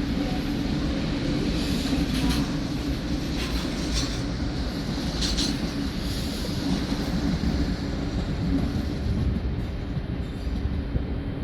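A rail vehicle running on the track with a steady rumble, with a few brief high-pitched squeals about 2, 4 and 5 seconds in.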